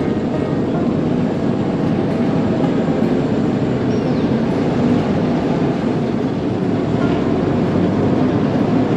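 Engine of a WWII army DUKW amphibious truck running steadily under way, heard from aboard.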